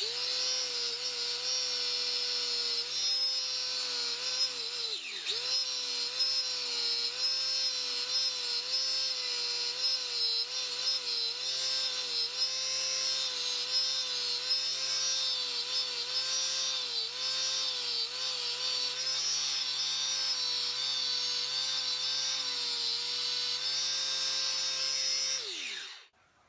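Electric angle grinder with a cup wire brush running at speed, its whine dipping again and again as the brush is pressed against a corroded metal buckle to strip the oxides. About a second before the end it is switched off and winds down with falling pitch.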